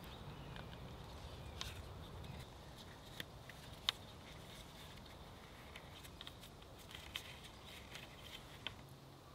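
Light wooden clicks and knocks of thin sticks being handled and lashed together with twine, a few separate ticks with the sharpest about four seconds in, over a faint low rumble.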